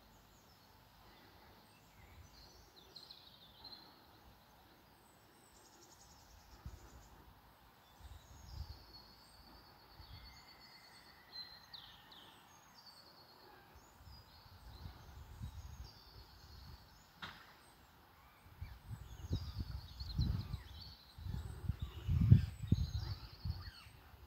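Small birds singing and calling from the trees, short high chirps and trills overlapping throughout, with gusts of wind buffeting the microphone in low rumbles that grow strongest near the end. A single sharp click about two-thirds of the way through.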